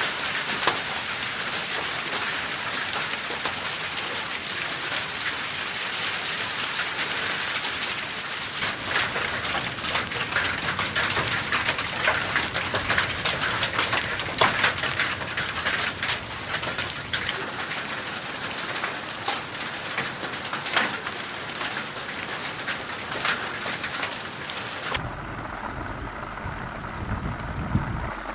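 Heavy rain falling hard: a dense patter that fills with many sharp hits from about eight seconds in. Near the end it changes suddenly to a duller, lower rush of water.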